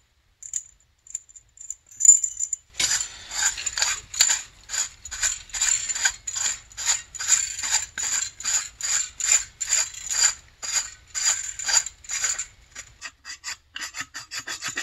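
Hand file rasping in steady back-and-forth strokes, about two a second, starting about three seconds in, flattening a freshly clipped end. A few faint clicks come before the strokes start.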